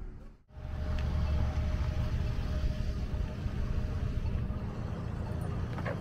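Car driving with a steady low road rumble, which starts after a brief drop-out about half a second in.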